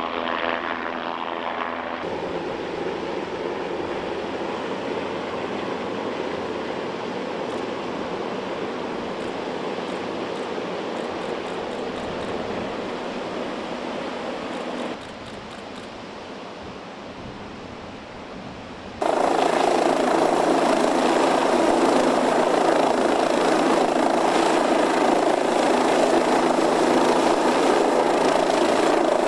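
MQ-8C Fire Scout unmanned helicopter in flight: steady turbine and rotor noise. It changes level abruptly a few times and is loudest over the last third.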